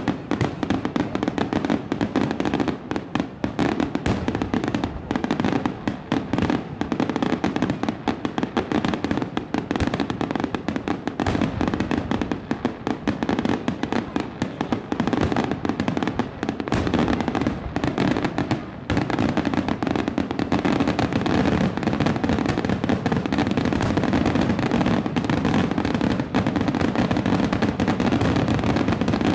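Aerial firework shells bursting in a dense, continuous barrage, bangs following one another in quick succession with hardly a gap.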